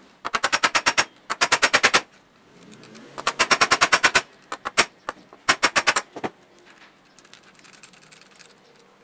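Ratcheting screwdriver clicking in quick runs of about ten clicks a second, five or six short bursts, as screws are backed out of a jig saw's gear housing. The clicking stops a little past the middle.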